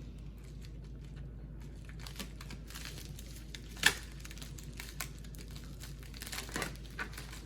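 Packaging of a computer component box being opened by hand: crinkling and tearing, with scattered crackles and one sharp snap about four seconds in.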